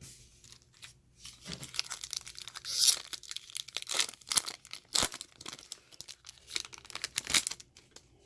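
Foil wrapper of a trading-card pack being torn open and crinkled, a run of short, sharp crackles and rustles.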